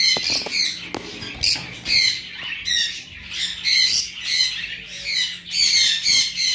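Caged lovebirds squawking with rapid, shrill calls, several a second, over a faint steady hum.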